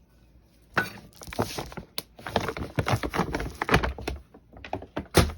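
A utensil stirring and scraping through dry powder in a bowl, breaking up lumps, with irregular clicks and knocks against the bowl and a sharper knock near the end.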